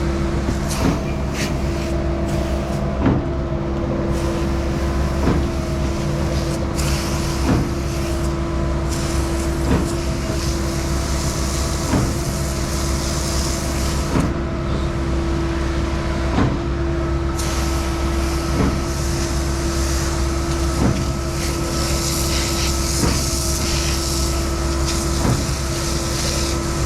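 Skid-steer-powered Mud Demon concrete pump running: a steady engine and hydraulic drone with a regular clunk about every two seconds as the pump cylinders change stroke.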